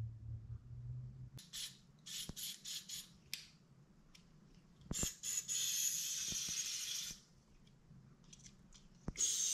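Aerosol cleaner sprayed through a straw nozzle into a plastic brake fluid reservoir. There are several short spurts, then one longer spray of about two seconds, then a few more spurts near the end.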